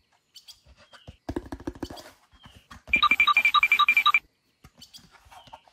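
Cartoon-style sound effects: a short quick run of low buzzy pulses, then a rapid ringing beep, about seven pulses a second, lasting just over a second.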